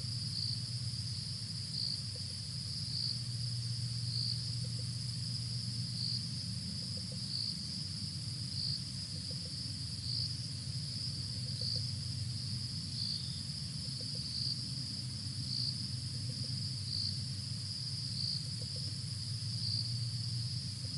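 Crickets calling: a steady, high-pitched trill that swells slightly about once a second, over a steady low hum.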